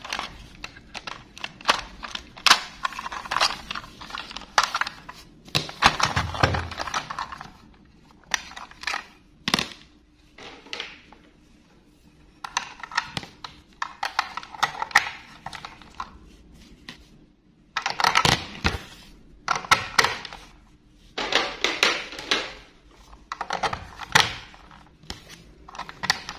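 Hard plastic clicks, taps and scrapes of a toy train engine being handled and turned over, its underside and battery cover fiddled with. The clicks come in irregular clusters with short quiet gaps between.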